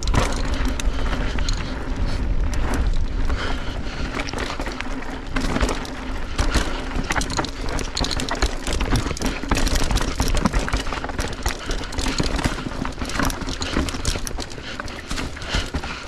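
Mountain bike descending a rough trail: tyres rolling over dirt and rock, with a constant rapid clatter of knocks and rattles from the bike over the bumps and a low rumble beneath.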